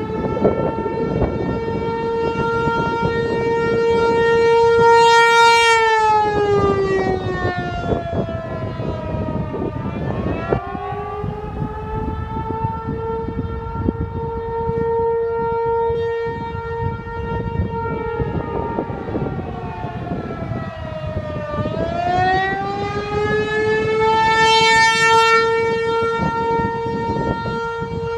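ASC T-128 tornado siren sounding a wail, most likely the attack signal: its single tone holds high, slides down and climbs back up about six seconds in, holds again, then dips and rises once more near the end. Its loudness swells and fades as the rotating horn sweeps round.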